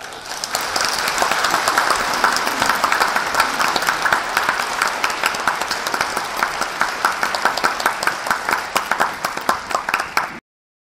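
Audience applauding: dense, steady clapping that cuts off abruptly about a second before the end.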